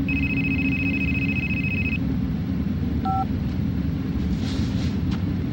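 An electronic telephone ringing, a high, rapidly pulsing tone lasting about two seconds, then about a second later a single short keypad beep as a phone button is pressed. A steady low rumble runs underneath.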